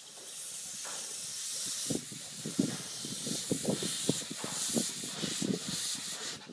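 Steam hissing steadily from a 7¼-inch-gauge miniature steam locomotive as it approaches slowly with its train. From about two and a half seconds in, the train also gives a run of irregular low knocks.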